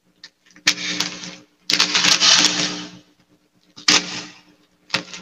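Gift wrapping paper being torn and crinkled by hand as a small present is unwrapped, in four rustling bursts, the longest about a second long.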